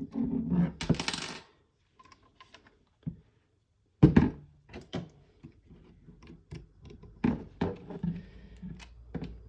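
Small hard parts being handled on a work surface: scattered light clicks and knocks, with a brief rustle near the start and one louder knock about four seconds in.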